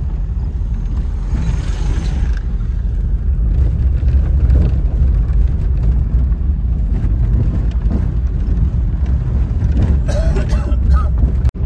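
Car driving on the road: a steady low rumble of road and engine noise.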